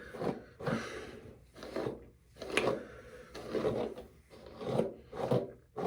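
A wig being brushed out: quick, irregular strokes of the bristles rasping through the hair, roughly one every half second.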